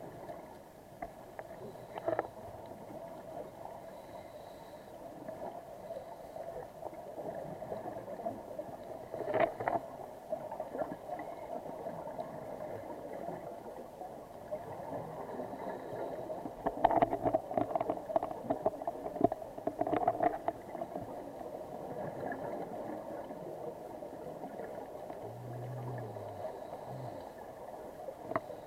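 Muffled underwater sound: a steady drone with bursts of bubbling every several seconds, typical of scuba regulator exhaust bubbles heard through a camera housing.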